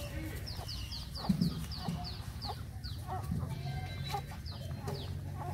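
Chickens clucking, with a run of quick high falling peeps about four a second over the first few seconds and a few more near the end.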